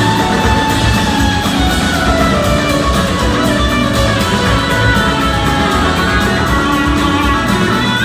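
Live blues-rock band playing at full volume, electric guitars to the fore over drums and bass, with a lead guitar line gliding up and down in pitch.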